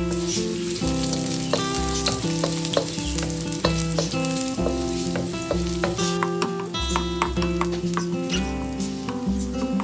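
Ginger strips sizzling in hot oil in a wok, stirred with a wooden spatula that scrapes and clicks against the pan, over background music.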